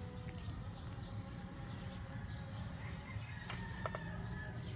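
Outdoor background: a steady low rumble with faint, scattered bird chirps, and a few light clicks about three and a half seconds in.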